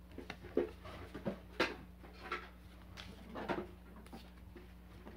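A stack of Pokémon trading cards handled in the hands, giving a few faint, irregular soft clicks and rustles over a low steady hum.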